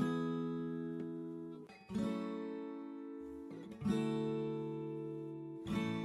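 Background music: an acoustic guitar strumming a chord about every two seconds, each chord left to ring out and fade.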